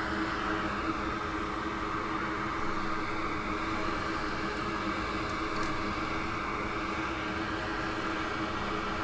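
A small electric blower or fan running steadily, a constant whir with a low hum.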